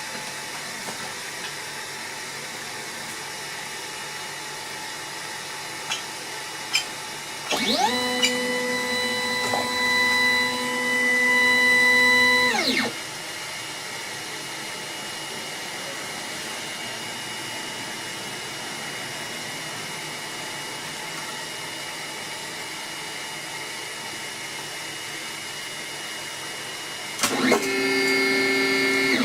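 3D printer running, with a steady fan hiss throughout. Its stepper motors whine at a steady pitch during two long moves, one about eight seconds in lasting some five seconds and another near the end. The pitch rises as each move speeds up and drops as it stops.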